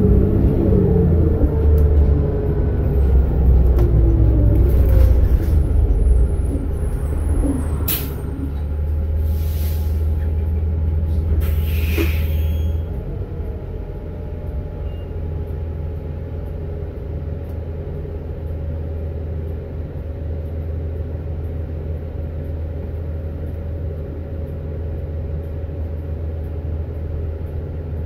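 2007 New Flyer C40LFR transit bus heard from inside the cabin: the engine and drivetrain run with a low rumble and a rising-and-falling whine in the first few seconds, then three short air hisses from the air brakes come about eight to twelve seconds in. After that the rumble drops to a quieter, steady idle.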